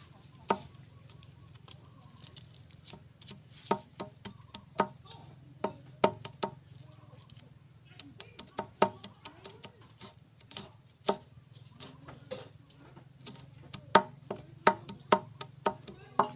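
A series of sharp, irregular knocks or taps, bunching more quickly near the end, over a steady low hum.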